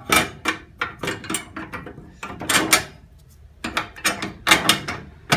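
Sheet-metal car body panel being handled and pushed into place: a run of clattering knocks and scrapes in several short bunches.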